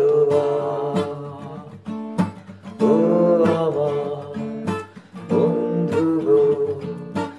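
Acoustic guitar strummed, with a man's voice holding long sung notes over it.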